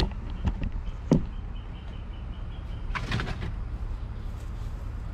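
Metal sheet pan with a wire rack being picked up and handled: a few sharp clanks in the first second, the loudest about a second in, and a short rattle about three seconds in, over a steady low rumble.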